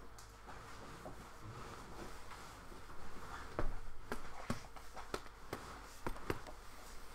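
Quiet room tone with a steady low hum, then a run of scattered sharp clicks and taps from about halfway through, roughly one every half second.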